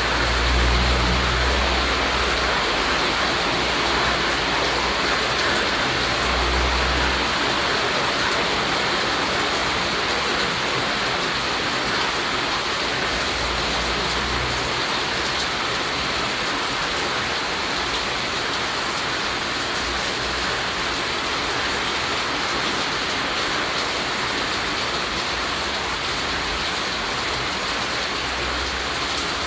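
Steady rainfall: a dense, even hiss of raindrops on surfaces. A low rumble swells underneath a couple of times in the first seven seconds.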